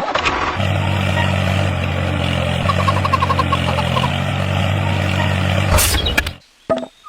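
Engine running steadily at idle, cutting off sharply after about six seconds.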